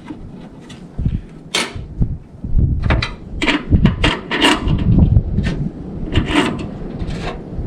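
Irregular clicks, knocks and rattles of hands handling a new spool of welding wire and the welder's wire-feed parts, with the springy wire trying to unwind off the spool.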